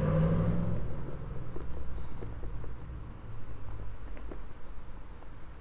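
Cloth rubbing over the leather trim and metal rivets of a Louis Vuitton canvas handbag: soft rustling handling noise with a few faint clicks.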